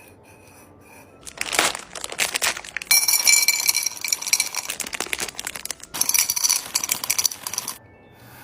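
Plastic packaging crinkling and rustling as it is handled, in two long stretches with a short break near the middle.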